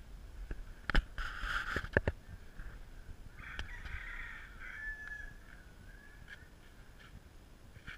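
A rooster crowing, one long drawn-out call from about three and a half seconds in. Before it come a couple of sharp knocks as the helmet camera is moved.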